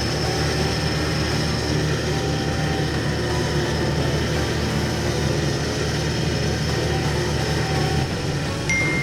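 Recovery truck running as it drives, a steady engine and road noise. Near the end a thin, high steady tone starts.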